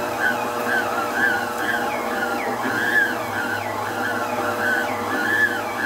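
Arno stand mixer motor kneading a stiff pastel dough, its whine rising and falling over and over as the dough hook labours through the heavy dough, over a steady low hum.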